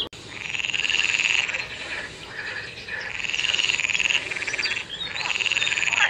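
Green water frog calling from inflated vocal sacs at the sides of its mouth: three long, rapidly pulsed croaks of about a second each, starting about half a second in, about three seconds in, and near the end.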